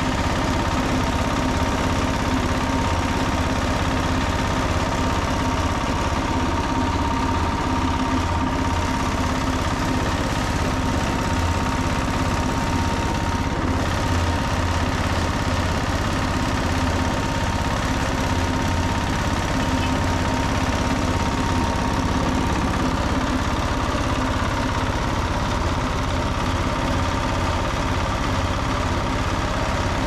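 Engine of a concrete mixer running steadily.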